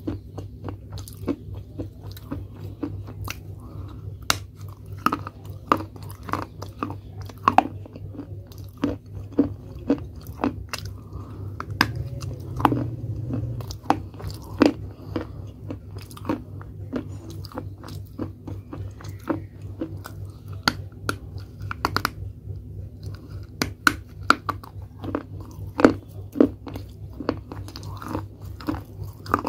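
Baked clay pot pieces being bitten and chewed close to the microphone: sharp, irregular crunches about once or twice a second over a low steady hum.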